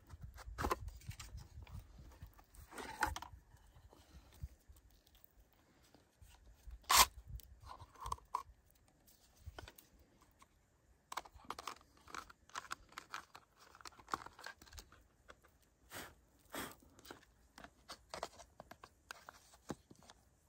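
Hands handling a cordless mini chainsaw with its side cover off, making scattered plastic clicks and small rattles, with one sharp click about seven seconds in. The saw's motor is not running.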